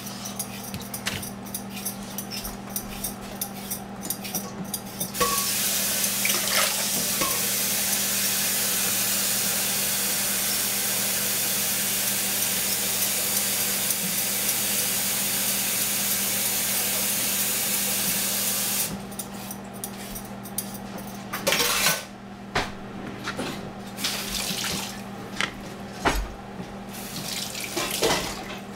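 Kitchen tap running steadily into a sink, starting about five seconds in and shut off a few seconds past the middle. After it stops come a few sharp knocks of a knife on a plastic cutting board as a cucumber is cut in half.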